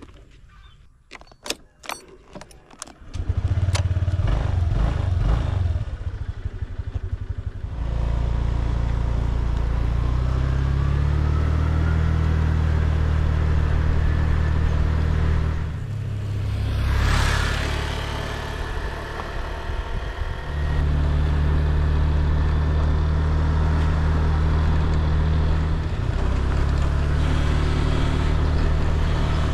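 A few clicks and a key jangle, then a motorbike engine starts about three seconds in and runs on as the bike is ridden, its note shifting up and down in steps. A rushing swell comes about seventeen seconds in.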